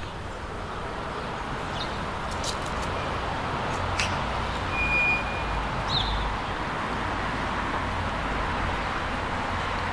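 Steady road-traffic noise, a vehicle passing that slowly swells and eases, with a couple of faint clicks and a short high chirp about five seconds in.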